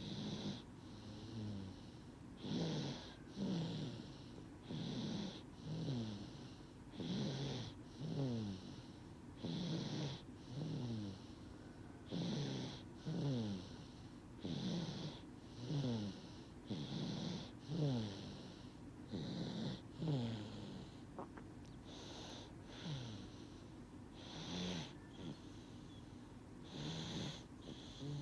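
Baby snoring in deep sleep: short snores that come in quick pairs, each dropping in pitch, about one pair every two seconds.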